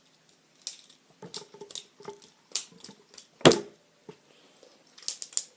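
Clicks and clacks of a Lego-built butterfly knife being flipped by hand, its plastic handles knocking together. About a dozen irregular clicks, the loudest about three and a half seconds in.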